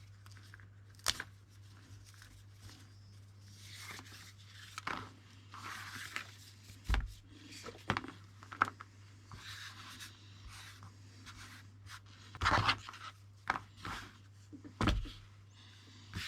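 Nylon paracord being handled and pulled: soft rustling and scraping with scattered light taps and knocks, over a faint steady hum.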